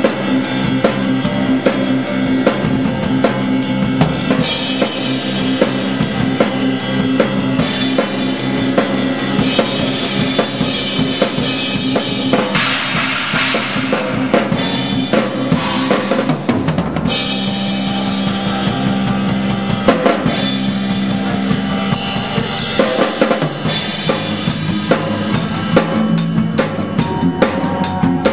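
Drum kit played with the pit orchestra: steady bass drum, snare and cymbal strokes over held keyboard chords, with a stretch of ringing cymbals around the middle and a run of rapid strokes near the end.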